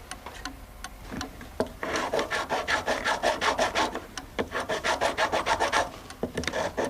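Wood being rasped by hand in quick back-and-forth strokes, about five a second. The strokes come in runs with short breaks, after a first couple of seconds that hold only a few light taps.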